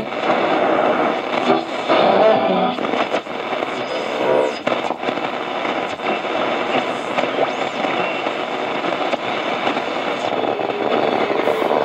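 Realistic DX-60 shortwave receiver tuned across the band between stations, giving hiss and static crackle with sliding heterodyne whistles. Brief snatches of a station come through in the first few seconds.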